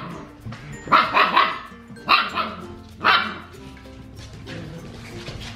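Siberian Husky puppies barking and yipping in play: three short bursts of high barks, about one, two and three seconds in.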